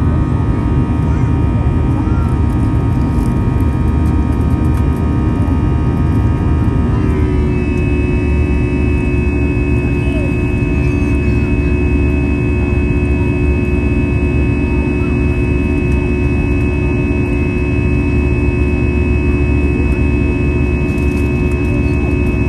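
Airbus A321-211 jet engine (CFM56-5B turbofan) heard from the cabin over the wing during the climb: a loud, steady rumble with a buzzing stack of steady tones. About seven seconds in the tones drop slightly in pitch, then hold steady again.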